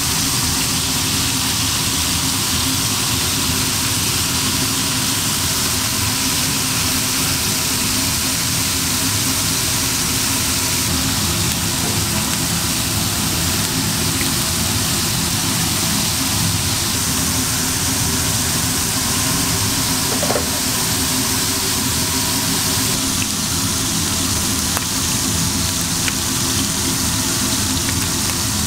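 Beef burger patties sizzling steadily on a flat-top griddle, over a constant low machine hum.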